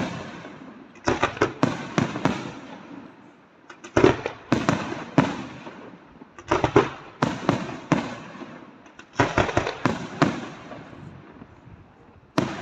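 Aerial firework shells bursting in volleys: clusters of several sharp bangs come about every two to three seconds, and each cluster dies away with a rumbling tail.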